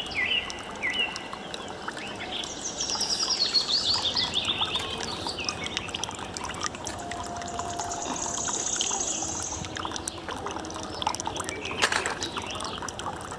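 Water pouring and trickling steadily from a small model pump's hose outlet into a shallow plastic tray, with bird chirps over it and a single sharp tap near the end.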